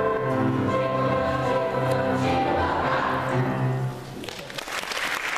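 Children's choir singing the last held chord of a song, cutting off about four seconds in; audience applause starts right after.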